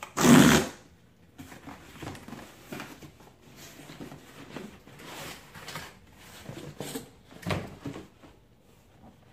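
A cardboard shipping box being opened by hand: a loud, short rip as the flap is pulled open near the start, then cardboard rustling and scraping as a shoebox is slid out, with a sharper knock about seven and a half seconds in.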